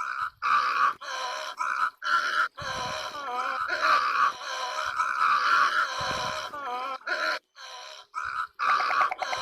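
A bird calling over and over: a string of harsh, pitched calls, some short and some drawn out for a second or more, with brief gaps between them.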